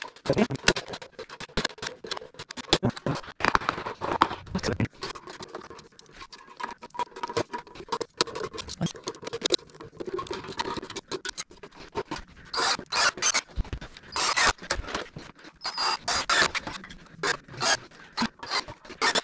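A DeWalt manual staple gun snapping staples through wire mesh into a wooden frame, among many irregular clicks, scrapes and rattles of the mesh being handled.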